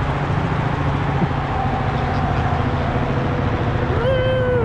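Police helicopter hovering low overhead, its rotor giving a steady low pulsing drone. About four seconds in, a brief high-pitched call rises, holds and falls over it.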